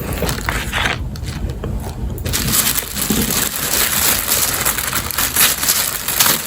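Wrapping paper crinkling and rustling as a gift box is unpacked by hand, soft at first, then dense and continuous from about two seconds in.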